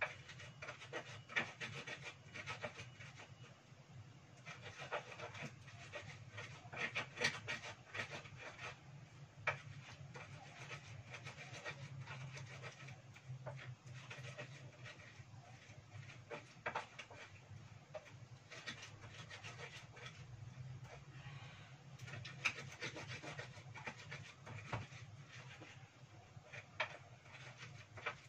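Pestle grinding spices in a cobek (Indonesian mortar): irregular rubbing and scraping strokes as the spices are worked into a paste.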